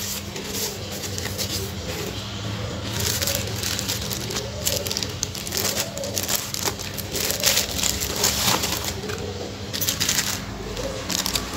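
Paper cards and a clear plastic sticker sleeve rustling and crinkling as they are handled, a string of short crisp crackles over a steady low hum.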